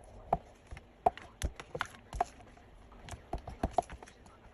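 Spoon clinking and knocking against a bowl as the mango tapioca mixture is stirred: irregular light taps, some ringing briefly.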